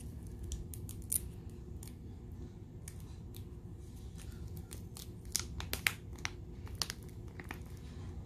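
Crinkling and crackling of a plastic bag of loose glitter as it is handled and its corner is cut, with a cluster of sharp snaps a little past the middle.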